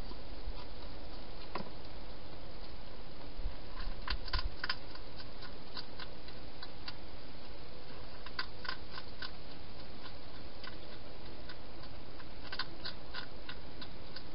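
A hedgehog eating from a bowl inside a plastic feeding box: three short bursts of crisp chewing clicks over a steady hiss.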